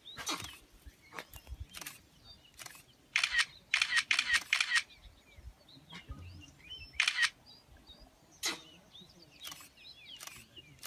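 Camera shutters clicking: single shots here and there and a quick burst of about five in a row near the middle. Faint bird chirps sound between the clicks.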